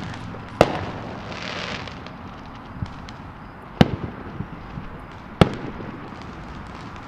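Aerial fireworks shells bursting at a distance: three sharp bangs, about half a second in, near four seconds, and a second and a half later, each trailing off in an echo. A brief hiss follows the first bang, and a few smaller pops fall between.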